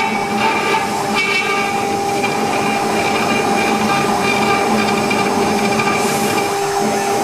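CNC router spindle running steadily with a tapered carving bit cutting relief into MDF: a constant whine of several held tones over a hiss of cutting noise.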